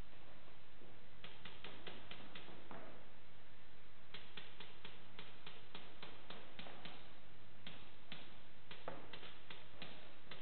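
Rapid shots from players' guns in a team shooting game, heard as several quick runs of sharp cracks with short pauses between them, over a steady low hum.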